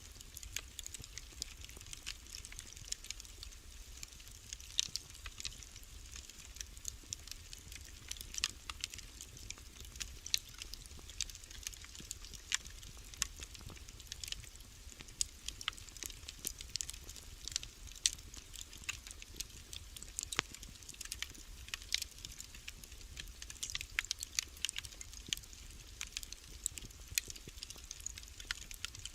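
Wood fire crackling in a fireplace: a steady stream of irregular small pops and snaps over a low, even rumble.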